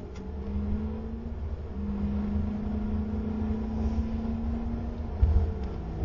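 Car running with a steady engine hum over a heavy low rumble, the hum's pitch stepping slightly up and down; a brief thump about five seconds in.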